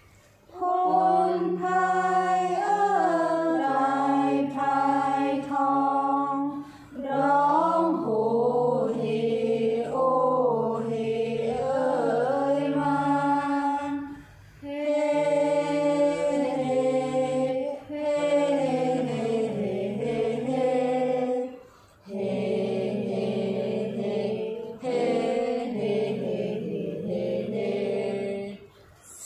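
Mixed group of teenage voices chanting Thai kap he ruea (royal barge chant) verse in unison, in a melodic recitation with drawn-out notes. The phrases are long and broken by short pauses for breath.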